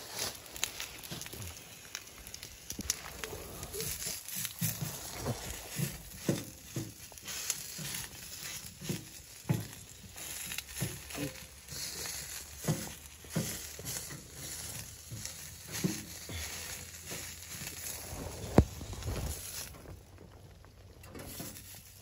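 Close rustling of a rain jacket against the microphone, with irregular clicks and knocks from handling, and one sharp knock near the end.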